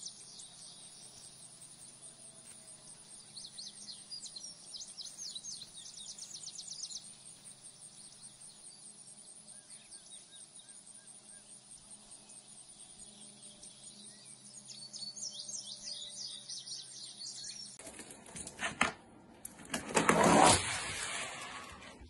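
Wild birds chirping in short clusters of quick high calls over a faint, steady outdoor background. Near the end a few louder knocks and a brief scraping burst take over.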